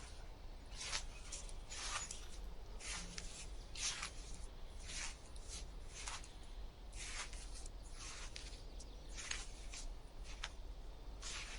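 Short scratchy, rasping strokes repeating about once a second, over a steady low rumble.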